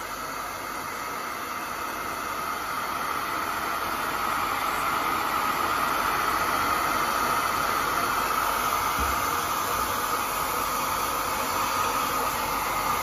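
Handheld hair dryer running steadily, blowing onto the iced-up evaporator coil of a split-type air conditioner to melt the ice. A steady rushing hiss with a motor whine in it, growing a little louder over the first few seconds.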